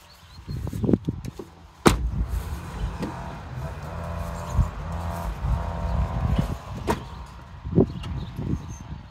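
A BMW 530d's car door shuts with a single sharp thud about two seconds in. Then a steady low rumble of handling noise, with a few light knocks.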